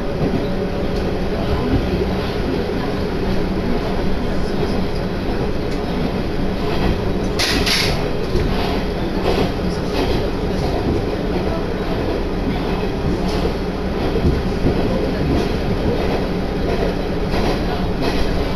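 Interior running noise of a diesel railcar under way: a steady rumble of engine and running gear, with the wheels clicking over rail joints at intervals. There is a brief louder hiss about seven seconds in.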